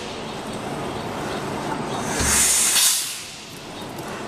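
Rumely OilPull tractor engine being turned over by hand at its flywheel, with a steady hiss and, about two seconds in, a single low thump with a loud hissing puff.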